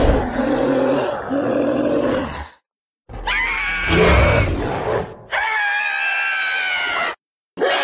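Creature sound effects played one after another, each cut off sharply with a silent gap between. A deep growling roar runs into the first second or two. After a short gap comes a rumbling call that bends in pitch, then a long pitched cry. Near the end a second pitched cry begins.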